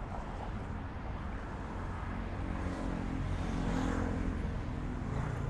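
Street traffic: a steady low rumble of vehicles, with one vehicle's engine passing close by, loudest about four seconds in.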